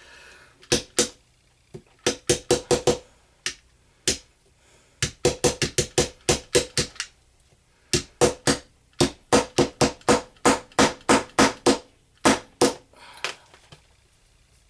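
Hammer blows chipping at a plaster treasure-dig block, coming in quick runs of about four strikes a second with short pauses between runs. The strikes are loud and stop near the end.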